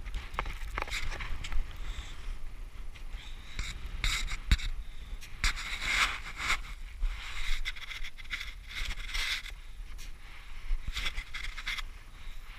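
Ice axe and boots striking and scraping into steep, hard snow in irregular strokes during a climb, with wind rumbling on the microphone.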